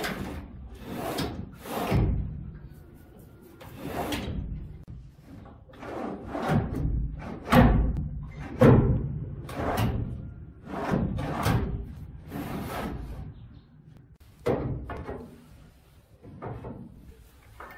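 Wooden storage drawers in a bed base being pushed and pulled on metal drawer slides, with a run of irregular wooden knocks and thuds as they hit the frame; the two loudest knocks come in the middle.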